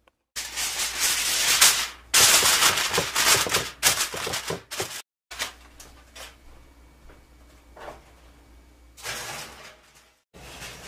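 Aluminium foil being pulled and crinkled over a glass baking dish, loud crackling rustles for about five seconds. After that come fainter scattered knocks and a short rustle.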